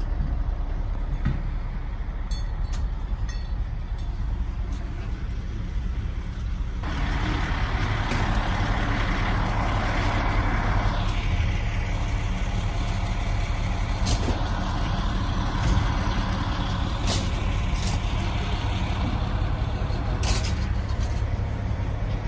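Military cargo truck's diesel engine idling with a steady low rumble. About seven seconds in a loud hiss rises and eases off after a few seconds, and a few sharp clicks follow.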